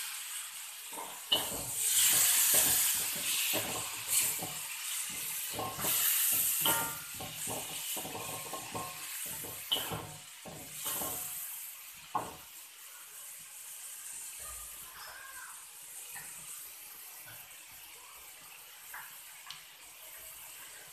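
Wax gourd chunks sizzling in hot oil in an aluminium wok, loud in the first several seconds and then dying down to a softer hiss. A wooden spatula knocks and scrapes against the wok as it stirs, often in the first twelve seconds.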